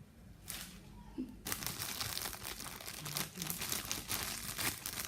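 Plastic bag of takeaway food crinkling and rustling as it is handled and opened. The steady crackling starts about a second and a half in.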